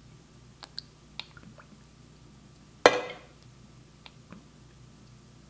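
Spoonfuls of oil being measured from a glass bottle into a measuring spoon and tipped into flour in a stainless bowl: a few small ticks and drips, then one sharp knock about three seconds in.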